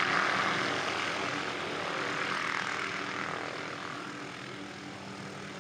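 Helicopter sound effect: steady engine and rotor noise that slowly fades.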